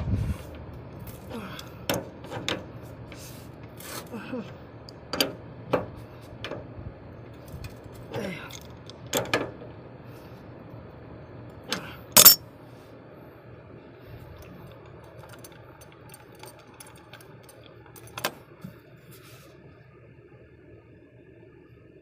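Metal wrenches clinking and clanking on the brass flare nut and service valve of an air conditioner's outdoor unit as the leaking flare nut is tightened, in scattered single knocks with one louder clank about twelve seconds in.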